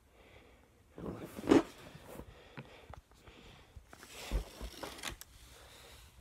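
Rustling and handling noise from the phone being moved about and rubbed against cloth and objects, with a few bumps; the loudest comes about one and a half seconds in, with another burst a little after four seconds.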